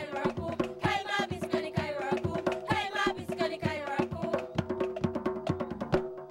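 Music: a song with a singing voice over fast drum percussion; the singing stops about three and a half seconds in, leaving the drums.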